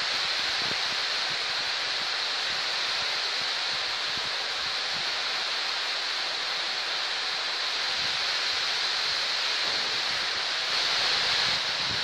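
Heavy rain pouring steadily onto trees and grass: a dense, even hiss, with irregular low rumbles of wind on the microphone and a brief swell near the end.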